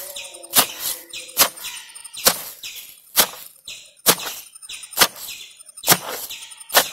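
Long wooden pestle pounding fresh herbs and their roots in a stone mortar: about eight heavy thuds, one a little under every second, crushing the greens to a pulp.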